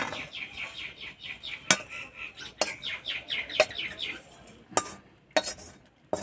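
Metal spatula scraping a crumbly cooked besan mixture out of a kadai onto a steel plate, with sharp knocks of metal on metal roughly once a second. A rapid run of short high squeaky notes runs through the first four seconds.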